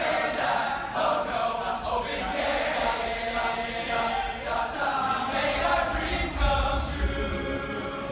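Music with several male voices singing together in harmony, choir-like. A deep bass swells about six seconds in.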